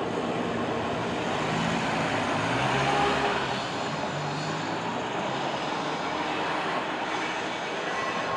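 Manx Electric Railway electric tramcar running along its track with a steady rumble of wheels and motor. From about one and a half to four and a half seconds in, an engine hum rises and falls over it, likely a road vehicle near the microphone.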